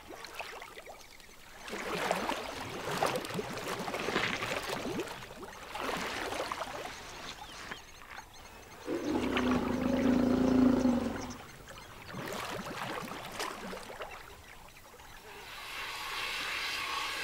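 African elephants drinking at a pool: water splashing and sloshing in several bursts as trunks draw up water and spill it. About nine seconds in, a deep, drawn-out elephant call lasting about two seconds is the loudest sound.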